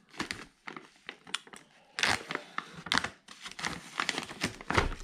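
Plastic packaging bag crinkling and rustling irregularly as it is handled and pulled open, with the loudest crackle just before the end.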